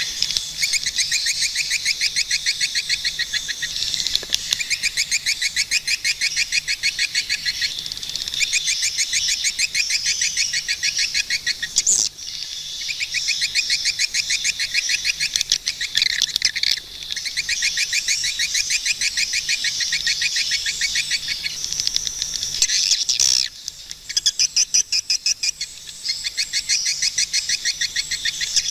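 Swiftlets calling in long runs of rapid, high chattering chirps, broken by a few short pauses.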